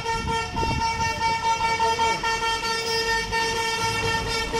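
A vehicle horn sounding in one long, unbroken honk at a steady pitch, over the low rumble of street traffic.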